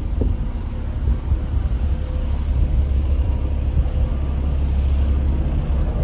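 Road traffic running on a busy street, a steady low rumble, with wind buffeting the microphone.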